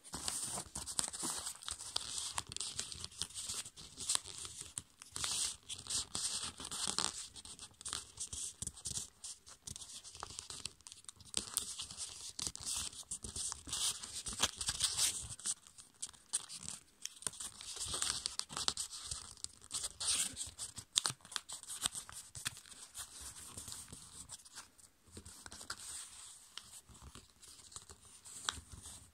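A sheet of A5 copy paper being folded by hand: irregular rustling and crinkling as it is bent, with sharper scrapes as the fingers press and run along the creases against the tabletop.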